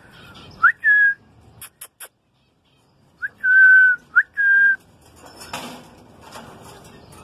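Cinnamon ringneck parakeet whistling a short phrase, a quick upward slide into a clear held note. It comes once near the start and twice more about three seconds in. A few sharp clicks fall in between, and scratchy rustling follows near the end.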